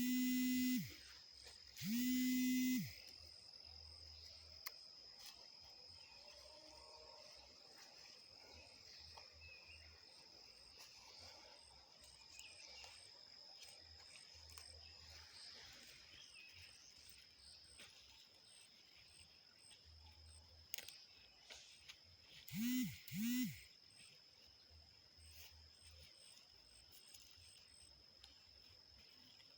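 Steady high trill of crickets or other insects under faint outdoor background noise. It is broken by a few loud, buzzy pitched tones: one at the start, one about two seconds in, and two short rising-and-falling ones about three quarters of the way through.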